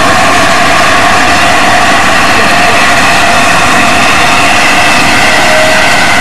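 Steam locomotive standing with steam blowing off: a loud, steady hiss with several held tones in it that does not let up.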